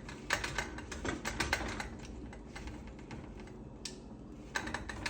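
Rapid, irregular light clicks and clacks of kitchen utensils and cookware being handled, thickest in the first two seconds and again near the end.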